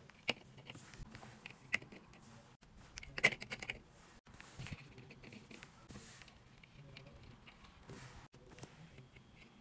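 Light clicks and taps of small plastic Disney Doorables figures being set into a miniature display shelf, with soft handling noise between them. A quick cluster of clicks about three seconds in is the loudest.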